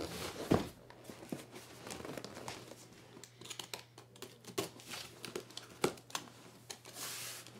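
Yellow utility knife cutting packing tape along the edge of a cardboard box, with scattered scrapes, crinkles and small knocks on the cardboard and a longer scraping cut about seven seconds in.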